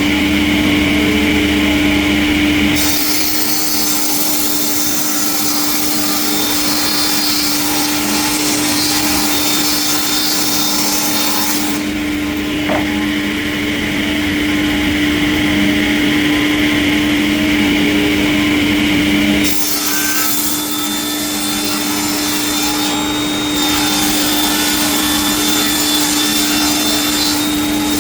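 Sawmill saw cutting through logs: a steady machine hum with a constant tone under a rasping cutting noise. The sound changes abruptly about three, twelve and nineteen seconds in.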